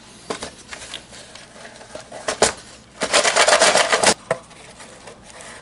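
A small old cardboard box being opened by hand: light scrapes and taps, then about a second of dense scraping and clicking some three seconds in as the telescoping lid is worked off.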